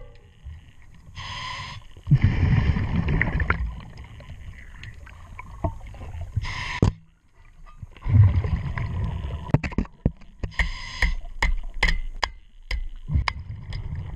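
Scuba diver breathing through a regulator underwater: a short hissing inhale followed by a longer bubbling exhale, twice, with a third inhale later. A run of sharp, evenly spaced ticks fills the last few seconds.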